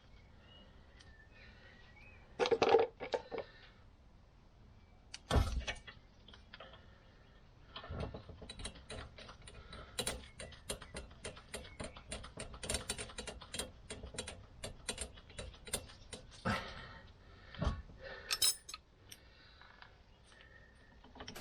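Ratchet spanner clicking in quick runs as the new rear hub bolts are wound in, with a few louder knocks and clinks of metal tools.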